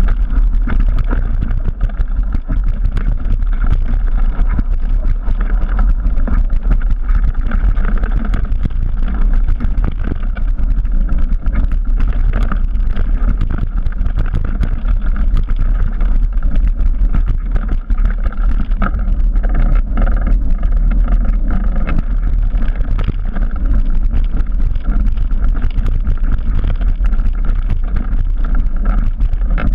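Trek Remedy 9 full-suspension mountain bike descending a dirt trail at speed: a steady rush of wind on the bike-mounted camera's microphone, with constant rattling and knocking from the bike and tyres over the rough ground.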